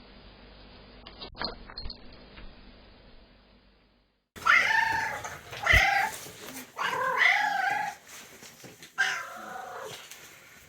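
A long-haired tuxedo cat meowing loudly about four times, starting about four seconds in; the third meow is long and drawn out. Before that there is only a faint background with a couple of soft clicks.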